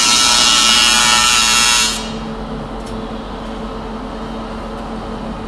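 MIG welder tack-welding aluminum fuel-tank panels: the arc gives a steady crackling hiss that cuts off sharply about two seconds in, leaving a low steady hum.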